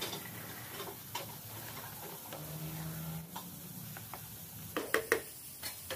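Chicken pieces and chopped green bell pepper sizzling in oil in a pan, with a spatula stirring and clicking against the pan several times, loudest near the end.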